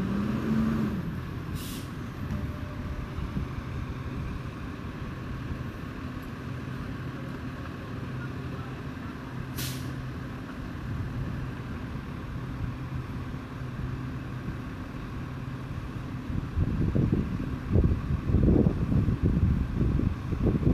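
Garbage truck's engine idling with a steady low drone, with two short hisses of air from its air brakes about 2 and 10 seconds in. From about 16 seconds on, louder uneven low rumbling comes in.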